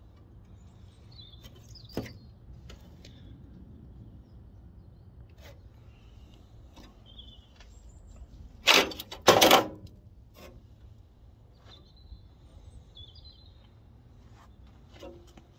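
Two loud metallic clanks just under half a second apart, from metal being knocked or handled on the rusted car bodywork, with a single sharper click a few seconds earlier. Faint bird chirps come and go in the background.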